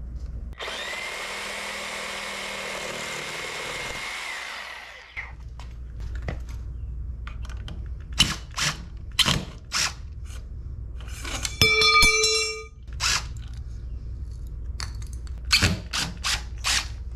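A DeWalt reciprocating saw runs, cutting the copper pipe, for about four and a half seconds with a steady buzzing hiss. Scattered knocks follow, and a DeWalt cordless drill briefly whines for about a second at the screws of the wooden mounting block.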